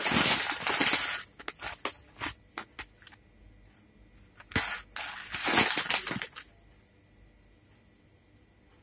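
Plastic instant-noodle packet (Segye spicy chicken fried noodle) crinkling as it is handled and turned in the hands. There is a bout of crinkling at the start, a few scattered crackles, and a second bout about halfway through.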